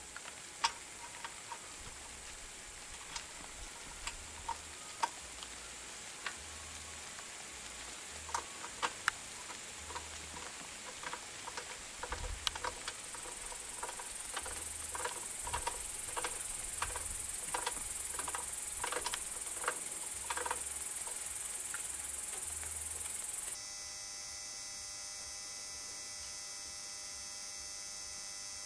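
Scattered light clicks and clinks of metal parts and hand tools being handled on top of a small engine, over a steady hiss. About three-quarters of the way in, the sound cuts abruptly to a steady electrical hum.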